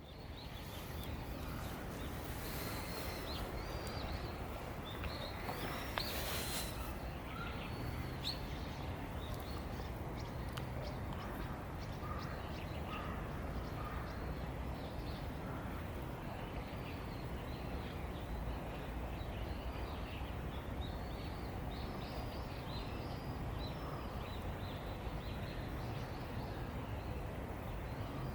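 Outdoor ambience: a steady low background hum with small birds chirping on and off, and a brief rustle about six seconds in.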